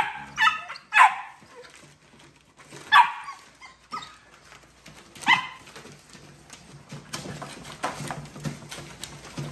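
American bully puppies yapping in short, high-pitched barks, five of them in the first five and a half seconds, followed by a steady crackle of the newspaper lining their crate as they move about and nose at it.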